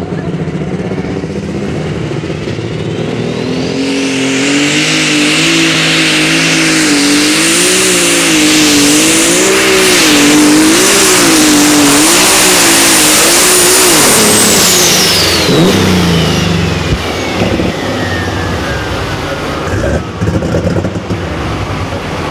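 Light Super Stock pulling tractor's engine under full power on a pull. A high turbo whine climbs to a steady scream within the first few seconds while the engine note rises and falls about once a second. After about fourteen seconds both wind down, the whine sliding steadily lower as the pull ends.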